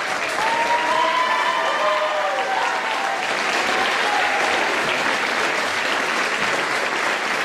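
Audience applauding steadily, with a few voices cheering over it during the first few seconds.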